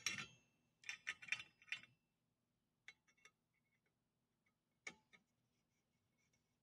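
Light metallic clicks and ticks from a screwdriver and needle-nose pliers working a small screw and nut as the motor bracket is tightened. A quick run of clicks comes about a second in, then a few single clicks, the loudest near five seconds in.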